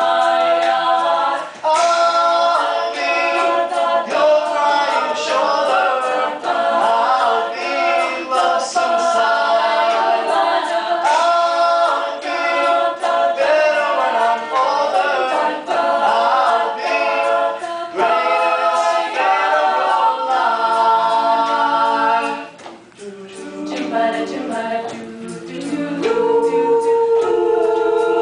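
Mixed-voice a cappella group singing, a male lead voice over close backing harmonies with no instruments. About three-quarters of the way through the sound drops away briefly and comes back softer, then swells into a held chord near the end.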